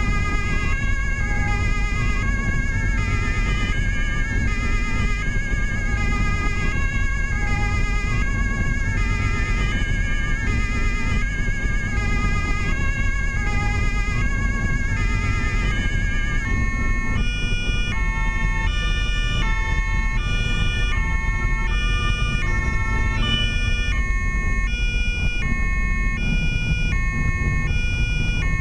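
German two-tone police siren (Martinshorn) sounding continuously in an even high–low alternation, heard from inside the car over steady engine and tyre noise. The siren pattern changes about two-thirds of the way through.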